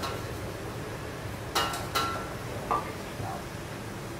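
Kitchen background noise with a few sharp metallic clinks of kitchenware, two of them ringing briefly, about one and a half to three seconds in.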